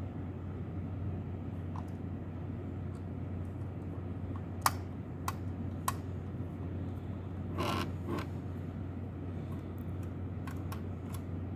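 Small screwdriver working a screw out of a computer module's metal chassis: three sharp clicks a little over half a second apart, then a brief scrape, over a steady low hum.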